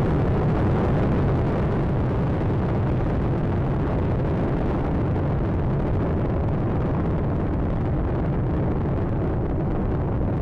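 Space Shuttle Atlantis's solid rocket boosters and main engines during ascent shortly after liftoff: a steady, dense rumble, strongest low down.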